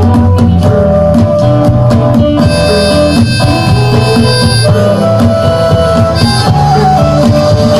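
Live band playing an instrumental passage: plucked guitar and a steady bass under a held, reedy wind-instrument melody with long sustained notes.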